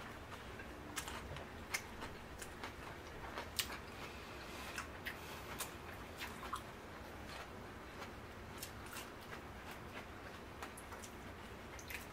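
A person chewing a large mouthful of wrapped food with raw oyster and garlic close to the microphone, heard as irregular small wet clicks.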